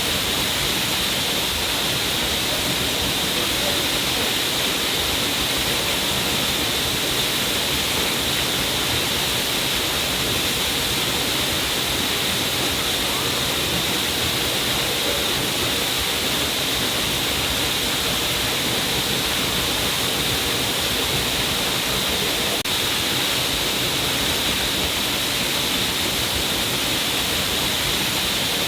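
A stream of water falling down a cliff face, a steady, unbroken rush and splash of water.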